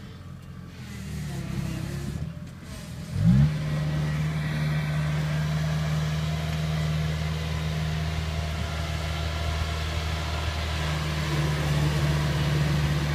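Kubota DC-70 combine harvester's diesel engine. About three seconds in it revs up sharply, then holds a steady, higher running speed as the tracked machine drives on.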